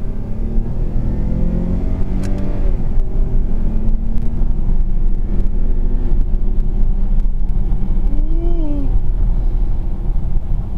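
2019 Dodge Charger GT's 3.6-litre V6 pulling under acceleration in manual mode, heard from inside the cabin over a steady low road rumble. The engine note climbs over the first couple of seconds, with a single click about two seconds in.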